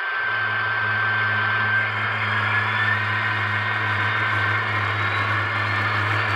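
Paragon 4 sound decoder in an HO-scale Broadway Limited EMD GP35 playing diesel engine sound through the model's small speaker as the locomotive pulls against a force gauge. A steady low hum comes in just after the start and runs on under a constant rushing noise.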